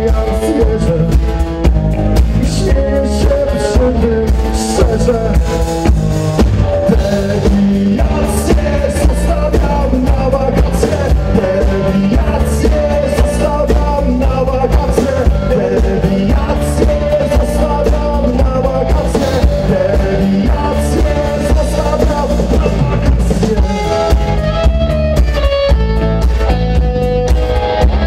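Live rock band playing: drum kit, bass and electric guitars, with a man singing over them.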